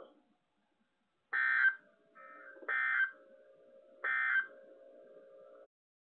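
Emergency Alert System end-of-message signal from an alert receiver's speaker: three short bursts of buzzing digital data tone about 1.4 s apart, marking the end of the warning broadcast. A fainter low steady tone fills the gaps between bursts.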